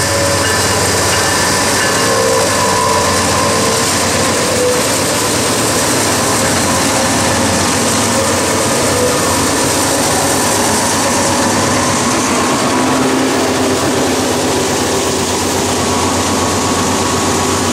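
A lash-up of GE C40-9W and C40-9 diesel-electric freight locomotives passing one after another at close range, their 16-cylinder engines running loud and steady as they pull a departing freight train.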